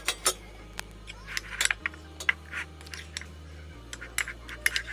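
Metal spoon clinking and scraping against a ceramic bowl while stirring potato cubes in mayonnaise: irregular knocks several times a second with soft, wet mixing sounds between them.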